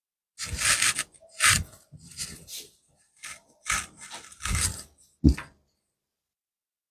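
Irregular bursts of scraping and rubbing over about five seconds, with three short knocks. The last and sharpest knock comes about five seconds in.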